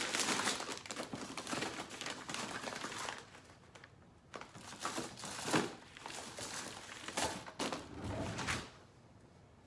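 Rummaging through a bin of craft supplies: uneven rustling and crinkling of packaging, a lull near the middle, then a few sharp knocks as items are moved about.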